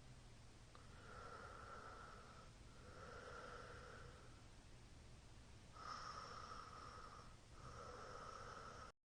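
A sleeping man's faint, noisy breathing: two slow in-and-out breaths, each phase lasting about a second and a half. The sound cuts out abruptly near the end.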